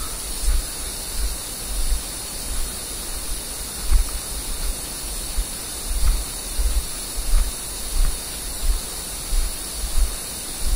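Footsteps of someone walking through moss and undergrowth, heard as regular low thumps about three every two seconds as each step jolts the body-worn camera. A steady hiss runs under them.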